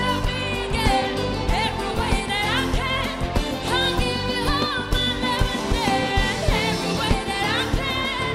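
A live band plays a pop song, with a drum kit keeping the beat, while a singer sings sliding, ornamented melodic runs over it.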